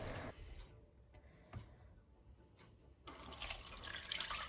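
Milky wheat liquid poured from a plastic bowl through a stainless-steel mesh strainer into a plastic tub. A steady pouring splash starts about three seconds in, after near silence broken by one faint knock.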